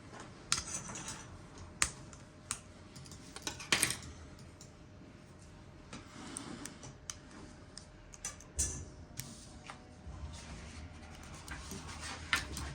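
Irregular small plastic clicks and scrapes of a 2020 Toyota RAV4 remote key's shell being prised apart with its metal key blade, the loudest cluster about four seconds in.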